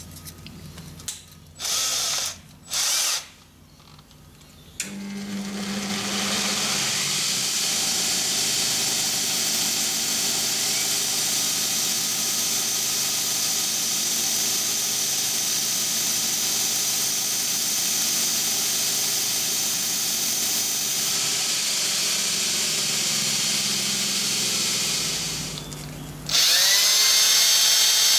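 Cordless drill spinning a thin silver-steel rod against a bench grinder wheel, grinding a point on it: two short drill bursts about two seconds in, then a long steady grinding hiss. Near the end it changes to a louder steady drill sound as the spinning rod is polished with wet-and-dry paper.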